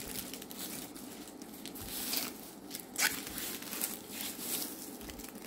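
Plastic and paper wrapping of a diamond painting canvas rustling under the hands as it is smoothed and pulled, with a sharper rustle about three seconds in.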